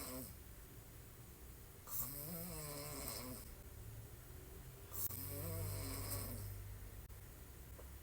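A woman snoring hard on her back with her mouth open: two long snores about three seconds apart, each starting with a hiss of air and carrying a pitch that rises and falls. The tail of a snore ends the moment the clip begins.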